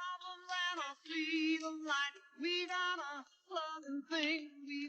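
A woman singing a melody in held notes with a wavering vibrato, in short phrases with brief breaks between them.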